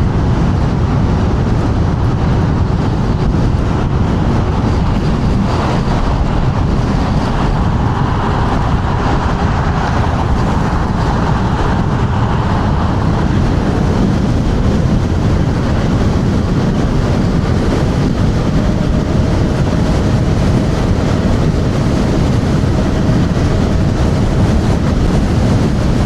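Heavy wind rushing and buffeting over the rider's microphone while riding an electric scooter at speed, a loud, steady low roar with road and tyre rumble beneath it.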